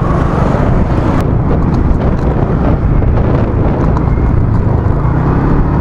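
Small motorcycle ride heard from the rider's microphone: steady wind buffeting and road rumble with the engine running underneath.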